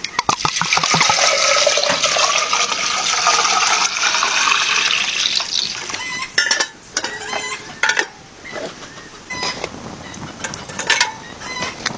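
Water pouring into a metal samovar, a rushing fill whose pitch climbs steadily as the vessel fills, stopping after about five seconds. Then a few sharp metallic clinks and knocks as the samovar's lid is handled and set in place.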